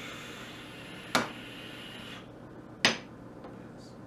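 A vape drawn on for about two seconds, a soft hiss of air through the atomizer. Small glass e-liquid bottles are set down on the table in two sharp knocks, about a second in and near the end.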